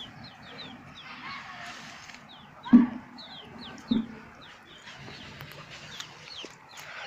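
Chickens in a village yard: chicks peeping in quick, short, falling chirps, with two louder, lower calls, one about three seconds in and one about a second later.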